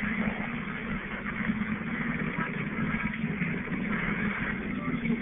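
Radio receiver putting out interference noise: a steady, rough buzz with hiss above it, which the uploader takes for a mobile phone disturbing the radio's signal.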